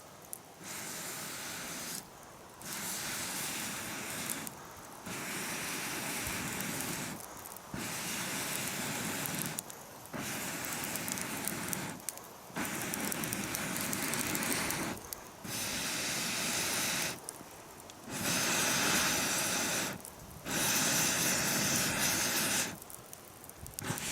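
Charcoal fire being blown on to get it going: about ten long hissing rushes of air, each a couple of seconds, with short breaks between them.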